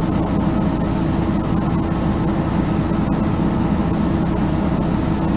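Inside a 1999 MAN NG312 articulated city bus running on the road: steady engine and drivetrain noise with road rumble, a constant low hum and a thin high whine.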